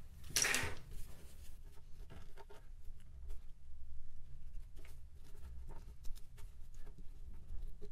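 Soft scratching, rustling and small crackles of a cut two-part RTV silicone mould being peeled and torn apart by hand to free the soft-plastic worms cast inside. There is a brief louder burst of noise about half a second in.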